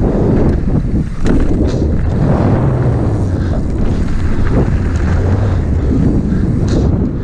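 Wind buffeting a bike-mounted camera's microphone as a mountain bike rolls fast along a dirt trail, with a steady low rumble and a few sharp rattles from the bike over bumps.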